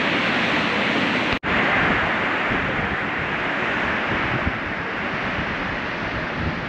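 Steady rush of ocean surf breaking over rocks, mixed with wind on the microphone. The sound drops out for an instant about one and a half seconds in, then carries on.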